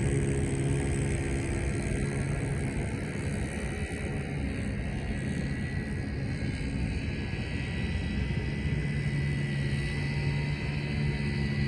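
Homemade propane-powered RC boat engine running steadily, with a thin high whine over it; it grows fainter through the middle and louder again near the end.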